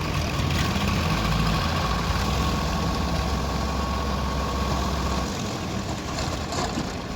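Diesel engine of heavy machinery running steadily at a low, even pitch, with a thin steady whine above it; the low rumble and the whine ease off about five seconds in.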